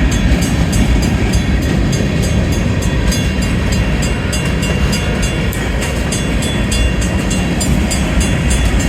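Grain train hopper cars rolling slowly through a grade crossing with a steady low rumble of wheels on rail. Over it, the crossing's warning bell rings at a steady beat of about two to three strikes a second.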